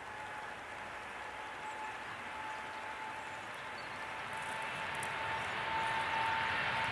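Boeing 787's jet engines whining at low power as the airliner taxis onto the runway, a steady high tone over a rushing noise that grows gradually louder.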